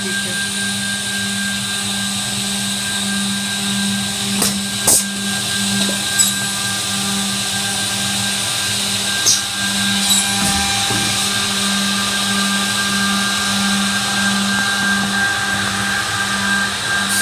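Filato FL-430U edge banding machine running, its motors giving a steady hum with a constant high whine. A few short sharp knocks stand out, two about four to five seconds in and two more about nine to ten seconds in.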